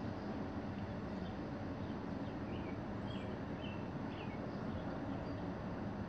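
Outdoor background ambience: a steady low rumble, with a few faint bird chirps near the middle.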